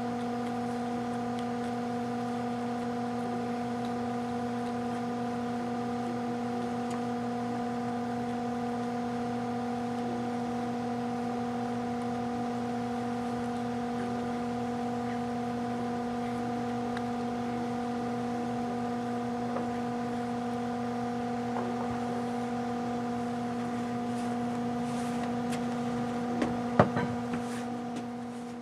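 A steady hum with several even overtones, typical of mains-frequency electrical hum. About two seconds before the end there is a sharp click, and the hum fades out right at the end.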